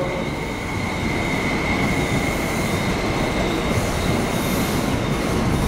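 MTR SP1900 electric multiple-unit train running into a station platform: a steady rumble of wheels on rail with a thin, steady high whine over it.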